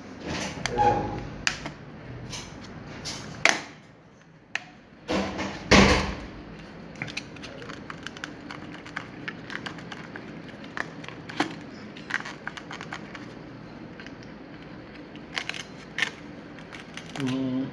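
Scattered clicks and knocks, with a couple of louder thumps in the first six seconds.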